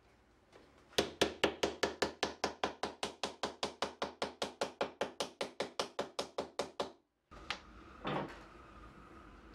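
A small mallet taps rapidly and evenly on wood, about five light blows a second for some six seconds, driving thin inlay strips down into a groove in a desk apron. After a short break come one or two softer wooden knocks.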